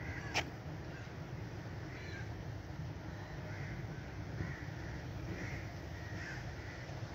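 Outdoor ambience with faint, scattered distant bird calls and a single sharp click about half a second in.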